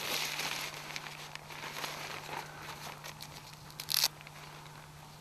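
Nylon tent flysheet rustling and crinkling as it is handled and fastened to a tent pole, with scattered small crackles and one short, sharp rasp about four seconds in.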